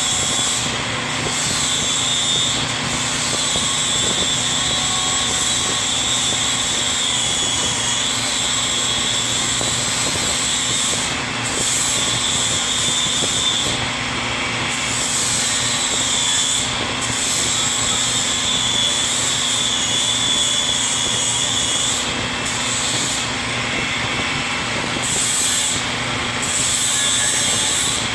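Milwaukee 18-volt cordless 4-1/2-inch angle grinder running steadily with a high whine as it grinds metal, its tone shifting briefly several times as the load on the disc changes.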